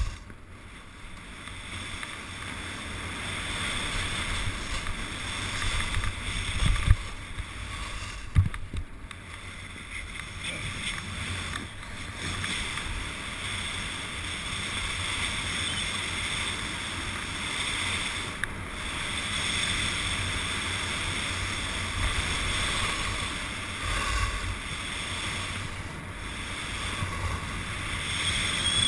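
Wind rushing over the microphone of a camera worn by a skier going downhill, with skis hissing and scraping over firm snow. Two short knocks stand out about 7 and 8.5 seconds in.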